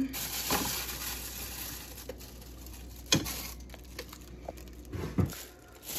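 Thin plastic bag rustling and crinkling as vegetables in it are handled and lifted out of a refrigerator, with a few light knocks of things being moved on the shelf, about half a second in, about three seconds in and about five seconds in.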